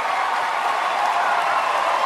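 Large audience applauding and cheering: a steady wash of clapping with shouts mixed in.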